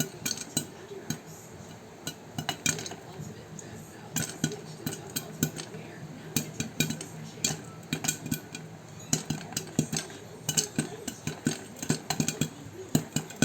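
Popcorn being cooked in a pot: irregular sharp clicks and clatter from the pot, coming in bunches, over a steady low hum.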